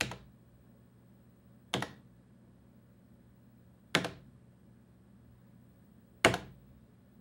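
Crosspoint buttons on an Echolab video switcher control panel being pressed, four sharp clicks about two seconds apart.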